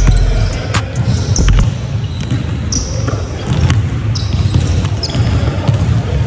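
A basketball being dribbled on a hardwood court, sharp bounces, with short high-pitched sneaker squeaks as the players cut and drive, over a steady low rumble.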